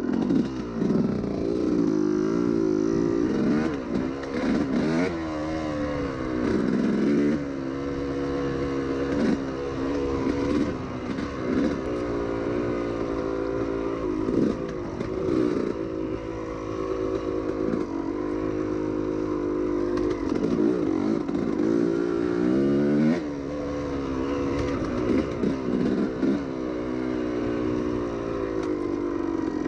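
Yamaha YZ250 single-cylinder two-stroke dirt bike engine running at low to middle revs while riding, its pitch rising and falling again and again with the throttle.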